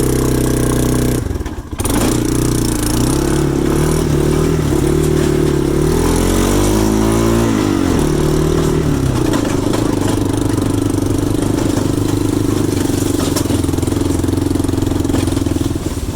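An engine running loud, briefly dropping away just over a second in, then its pitch rising and falling for several seconds before it settles into a steady run.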